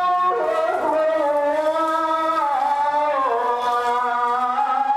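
A single voice chanting or singing long held notes that glide slowly up and down between them.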